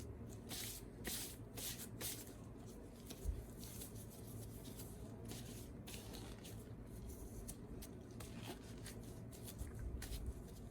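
Faint, irregular rustling and scraping of packaging being handled during an unboxing.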